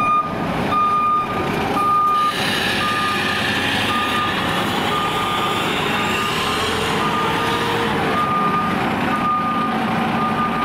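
Reverse alarm on a Seagrave fire engine beeping about once a second as the rig backs up, over its running engine. About two seconds in, a steady hiss joins.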